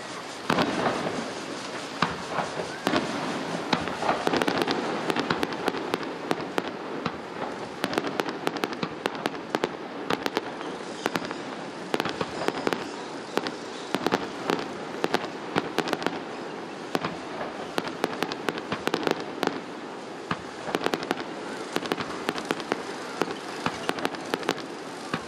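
Aerial fireworks shells bursting one after another, with many sharp, irregular bangs and crackles throughout.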